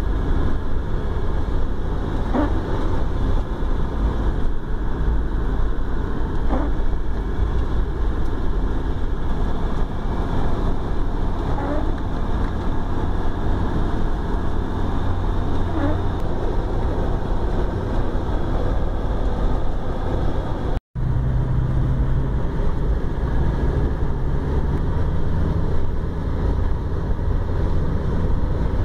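A car's engine and road noise heard from inside the cabin while driving: a steady low rumble with a hiss of tyres over it. The sound cuts out for an instant about two-thirds of the way through.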